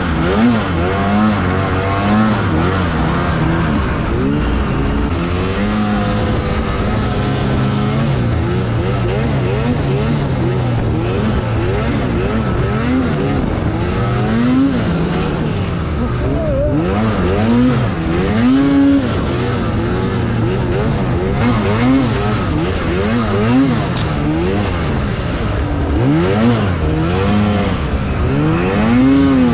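Arctic Cat Alpha One M8000 snowmobile's 800 two-stroke twin engine being ridden hard, revving up and dropping back again and again with the throttle, its pitch rising and falling many times.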